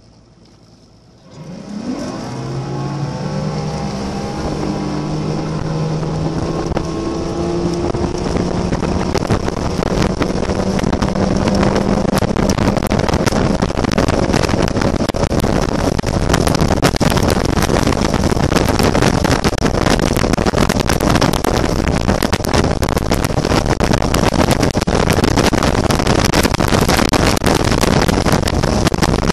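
Bass boat's outboard motor throttling up about a second and a half in, its pitch climbing over several seconds as the boat gets under way, then running steadily at cruising speed. Rushing wind and water noise is heavy over the engine once up to speed.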